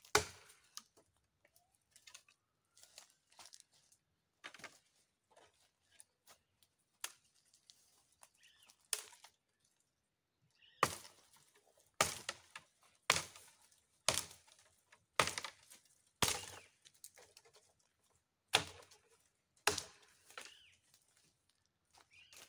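Dry wooden branches cracking and snapping as they are broken by hand. There are scattered light snaps at first, then a run of sharp, loud cracks about once a second from about halfway, and two more a little later.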